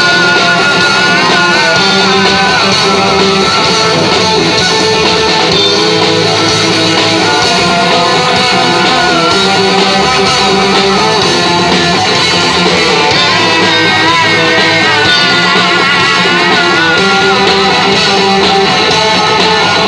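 A live rock band playing loud: electric guitars over a Tama drum kit, with a wavering lead line on top.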